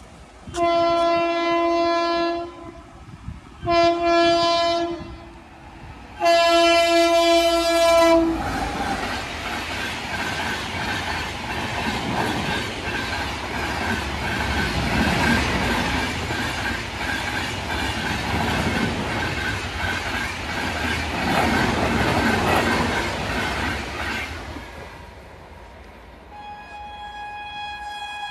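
Indian Railways express locomotive's horn sounding three long blasts, about a second apart, as it approaches. The passenger train then passes close by at speed with a loud, steady rumble and wheel clatter that fades after about 25 seconds. A horn of a different, higher pitch starts up near the end.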